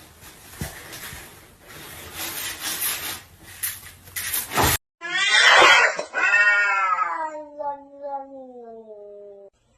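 A cat yowling: one long drawn-out call that starts loud and slowly falls in pitch, after a few seconds of noise with some knocks.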